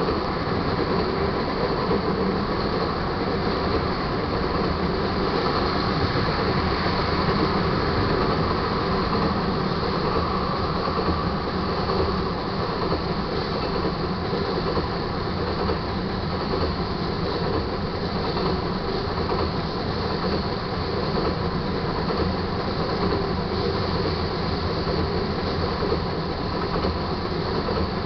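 Tank cars of a crude-oil freight train rolling steadily past a grade crossing: the continuous, even sound of steel wheels running on the rails.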